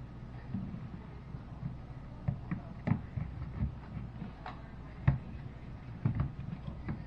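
Irregular clicks and knocks over a steady low hum, the sharpest about three seconds in and about five seconds in.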